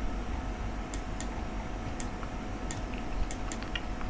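Computer mouse clicks: about half a dozen short, sharp clicks at irregular intervals, over a steady low hum.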